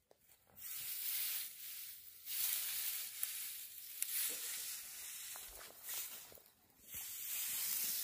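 Dry cut hay rustling and scraping over stony ground as it is dragged together with a long-handled wooden hay tool, in several long strokes.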